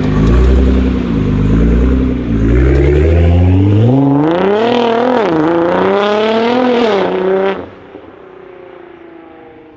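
Nissan GT-R R35's twin-turbo V6 with a Titan aftermarket exhaust, loud under hard acceleration: the engine note climbs in pitch, dips briefly at each of several quick upshifts and climbs again. About two seconds before the end it drops away suddenly to a much fainter sound.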